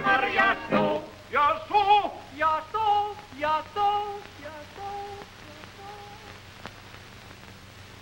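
Cartoon voices singing in short phrases with a wavering vibrato. The notes thin out after about four seconds and stop a little past six seconds, leaving only the hiss of the old soundtrack.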